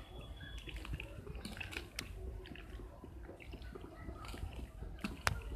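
A hand squishing spinach leaves through thin gram-flour batter in a steel bowl: irregular wet squelching and small clicks, with a sharper click about two seconds in and the loudest about five seconds in.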